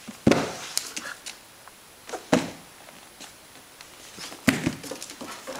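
Three sharp thumps about two seconds apart, with lighter claw clicks and scuffling between them: a Greater Swiss Mountain Dog puppy bounding and pouncing on a hardwood floor.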